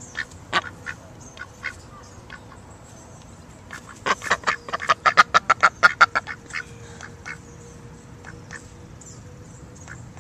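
Mallard ducks quacking: a few scattered quacks, then a fast, loud run of about a dozen quacks about four seconds in, tailing off into a few more.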